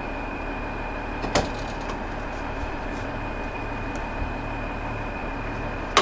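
Steady background hum with a faint high whine running through it, broken by a light knock about a second and a half in and a sharp click at the end, from hands handling an old grain moisture tester.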